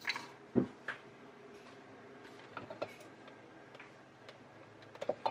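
A few scattered light knocks and clicks, the strongest about half a second in: an electric hand mixer and kitchen utensils being handled against a stainless steel mixing bowl, with the mixer not running.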